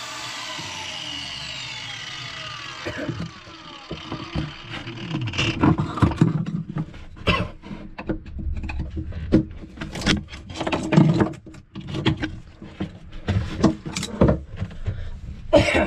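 An angle grinder spins down, its pitch falling over the first few seconds. Then come irregular sharp metal knocks and scrapes as a flat steel blade is driven and levered into the cut-down stub of a corroded thru-hull fitting to break it out of the hull.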